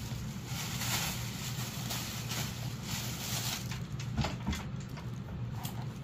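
Cloth rustling and rubbing as hands smooth dyed fabric and roll it onto a wooden hongdukkae roller, with a few light knocks about four seconds in and again near the end. A low steady hum runs underneath.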